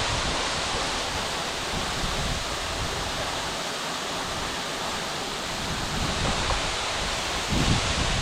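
Steady rush of a waterfall, with low buffets of wind on the microphone now and then.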